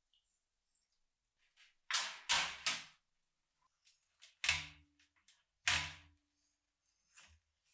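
Wet, rusty metal meat grinder set down and shifted on a metal tray: three quick clanks about two seconds in, then two more knocks a second or so apart, each of the later ones with a short ring.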